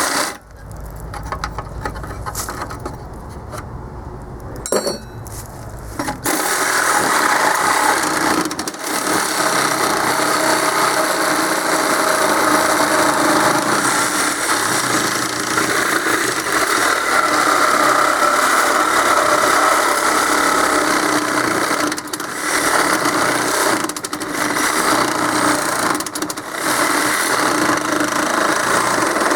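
Cordless Sawzall reciprocating saw cutting through the steel of an air-compressor tank, a loud, steady rasp that starts about six seconds in and stops briefly a few times toward the end. Before it starts there is a quieter low hum.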